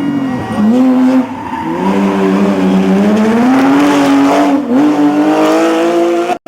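Rally car engine under hard acceleration on a stage, revs climbing steadily with a brief drop about two thirds of the way through as it shifts up a gear, then cut off suddenly near the end.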